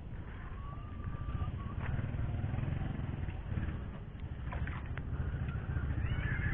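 A small engine running steadily, a low even drone.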